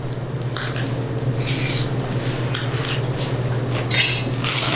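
A steady low machine hum, with short soft tearing and rustling as the blade bone is worked free from a beef forequarter by hand.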